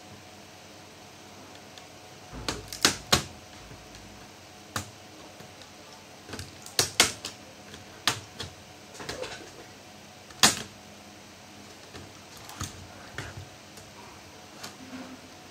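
Irregular sharp clicks and taps of small screws, a screwdriver and plastic laptop casing parts being handled during disassembly of an HP 250 G3 laptop, several in quick pairs, the loudest about ten seconds in.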